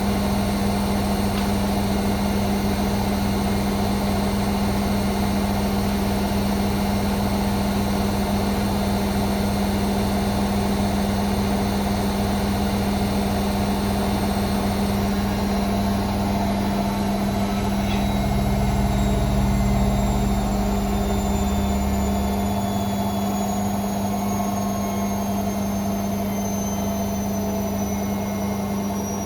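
Hoover Sportswear 1300 washing machine on its fast spin, the drum and motor running at high speed with a steady hum and a high motor whine. About halfway through the whine starts to fall slowly, and a low rumble swells for a few seconds before easing again.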